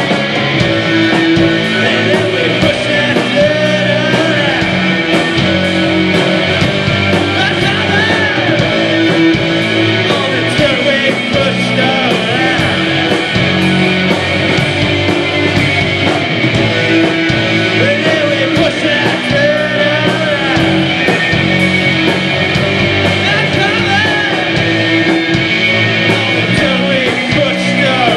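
Live post-punk band playing a song: electric guitar, bass guitar and drums at a steady, loud level, with a sung vocal over them.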